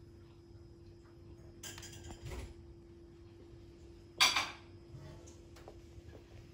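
A kitten scuffling and batting at a feathery wand toy, with rustling and one sharp clinking clatter about four seconds in, over a faint steady hum.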